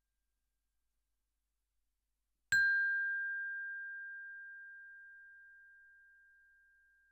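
Silence, then a single struck ding about two and a half seconds in. A clear, high, bell-like tone rings on and fades slowly over several seconds, while brief higher overtones die away within a second.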